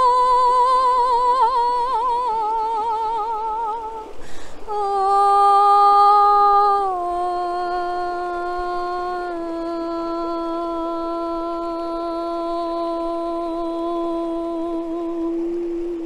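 A woman's voice toning long wordless sung notes. The first is a higher note with a wavering vibrato. After a short break for breath about four seconds in, a lower note is held steady for about ten seconds, stepping down in pitch twice.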